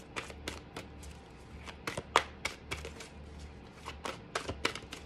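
Tarot card deck being shuffled by hand: a string of quick, irregular card snaps.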